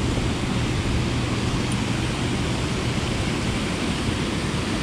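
Steady rush of turbulent tailwater below a hydroelectric dam with its generators running, along with a small waterfall pouring over a rock ledge, and a steady low hum underneath.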